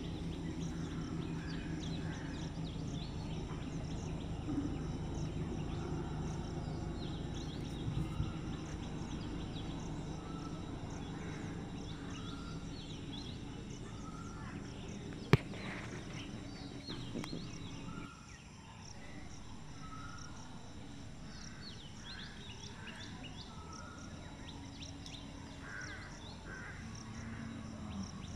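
Birds chirping and calling over a low steady hum, which drops away about two-thirds of the way through. One sharp click near the middle.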